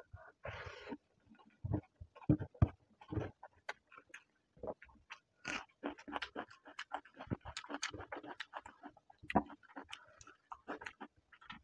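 Open-mouth chewing and lip-smacking of rice and egg curry eaten by hand: an irregular run of quick wet clicks and smacks, with fingers mixing rice on the plate between mouthfuls.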